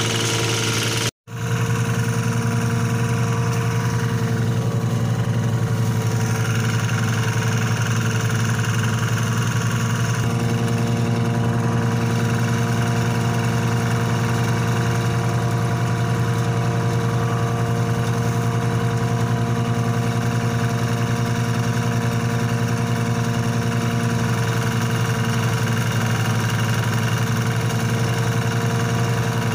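Small engine of a portable rice thresher running steadily at an even speed, driving the threshing drum as rice stalks are fed in. The sound drops out for a moment about a second in.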